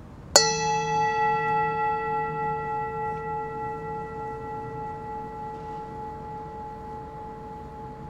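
A singing bowl struck once about a third of a second in, then ringing with a slowly fading, gently wavering tone, a long 'ngiing' to follow in meditation.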